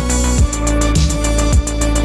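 Background music with a steady electronic beat: a deep drum that falls in pitch about twice a second, under sustained synth tones and a regular high tick.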